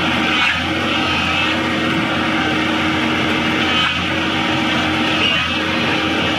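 Heavy diesel engine of an excavator running steadily at working speed while it pushes a granite block on a truck bed.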